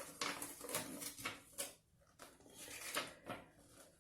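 Handling noise close to the microphone: a run of short rustles, scrapes and light knocks as the product is picked over, with a quieter gap about two seconds in.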